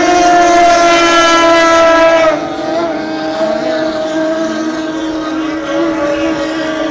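Racing powerboat engine running at high revs as the boat passes, its pitch sliding slowly down. About two seconds in, the sound drops lower and quieter and settles to a steady note as the boat moves away.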